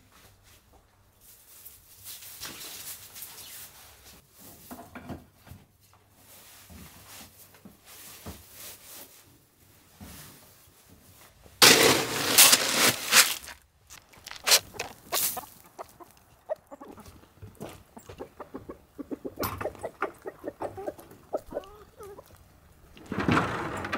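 Chicken feed scooped from a bin with a cut-down plastic jug: a loud rattling rush of pellets and grain lasting about two seconds near the middle. Later, chickens clucking among a run of many short sharp sounds.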